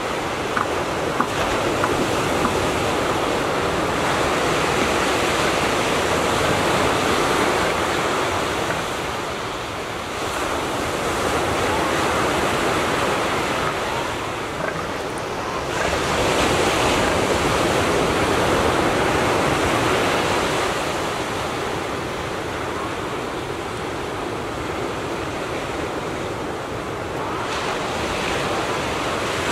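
Surf washing onto the shore, a steady wash of water that swells and eases every few seconds.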